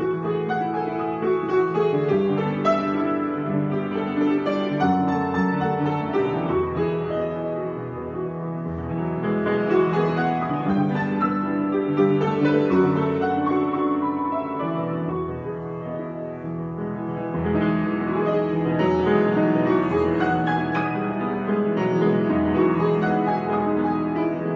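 Solo piano improvisation: notes and chords played continuously, easing to a quieter passage about a third of the way in and again about two-thirds in before building back up.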